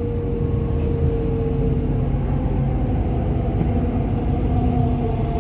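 City bus interior while riding: low, steady engine and road rumble with a whine that holds one pitch for about two seconds, then shifts to other pitches.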